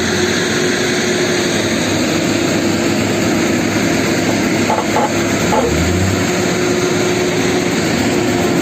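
Heavy diesel engine noise from an excavator pushing a loaded truck: a loud, steady drone with a constant hum.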